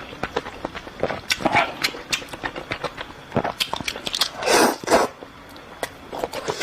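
Close-miked eating of Indomie instant noodles: wet chewing and mouth clicks, with two longer slurps, about a second and a half and four and a half seconds in.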